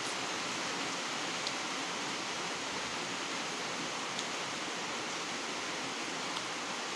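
Steady, even hiss, with a few faint clicks.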